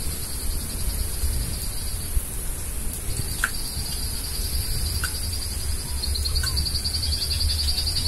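Insects trilling in the open countryside: a steady high-pitched drone and a lower, fast-pulsing trill that drops out for about a second near the middle and comes back louder near the end. A few short bird chirps and a low rumble lie underneath.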